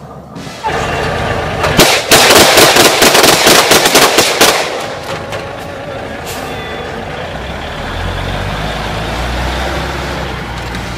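Military 6x6 cargo truck driving through tall grass, its engine loud and rattling as it passes close, loudest for a couple of seconds early in the pass, then running steadily with a low rumble as it pulls away.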